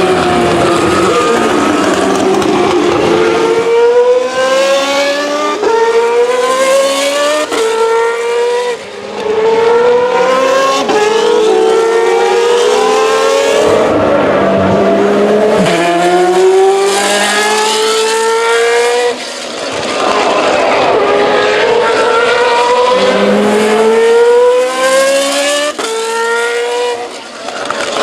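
Formula 2 race car's naturally aspirated 4-litre Mecachrome V8 at full throttle, its pitch climbing in steps as it upshifts about once a second. Three times the note falls away under braking and downshifts, then climbs through the gears again.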